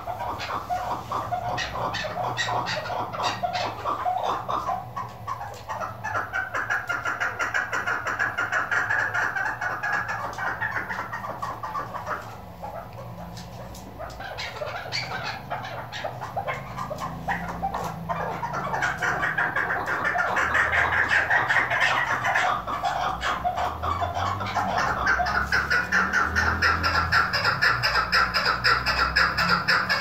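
Female chukar partridge calling: a fast, unbroken series of repeated chuck notes. It goes quieter for a couple of seconds around the middle, then grows louder again.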